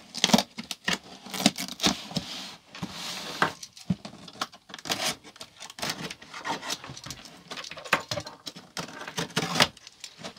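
Utility knife scraping and slicing through packing tape on a cardboard box, with cardboard rustling and irregular knocks as the box is handled and turned on the table.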